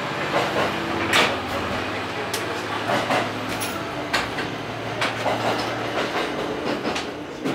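ET122-series diesel railcar running slowly out of a station, heard from inside the front cab: a steady engine hum under irregular sharp clacks and knocks, about one a second, as the wheels cross rail joints and points.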